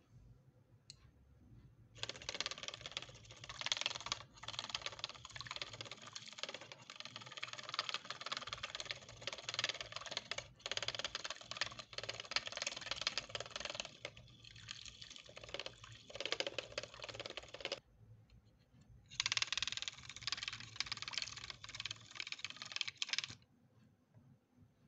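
Small coil whisk clicking and rattling rapidly against a tiny aluminium bowl while whisking milk for a milkshake. It goes in two spells, a long one and then a shorter one after a brief pause.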